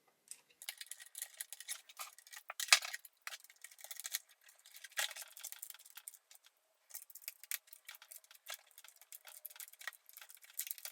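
Screwdriver driving a screw into an iMac G4's internals, heard as irregular light metal clicks and ticks, with a short pause about two-thirds of the way through.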